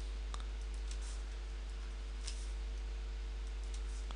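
Steady low electrical hum, with a few faint clicks spread through it.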